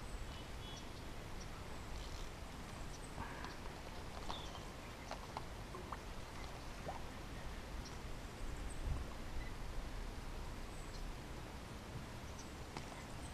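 Faint outdoor ambience on a lake: a low wind rumble with scattered short bird chirps and small clicks.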